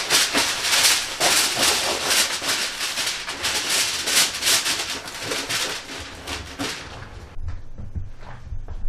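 Aluminum foil crinkling and crackling as a sheet is folded and wrapped, stopping abruptly about seven seconds in, followed by a few faint knocks.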